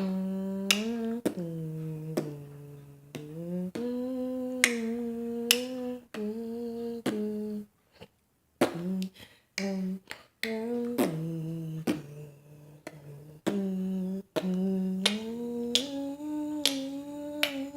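A person humming a tune in long held notes that step up and down in pitch, with sharp finger snaps every second or so.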